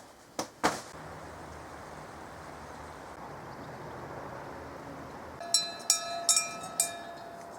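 A metal bell clanking at uneven intervals from about five and a half seconds in, each strike ringing briefly at the same pitch. Two knocks sound near the start, over a steady hiss.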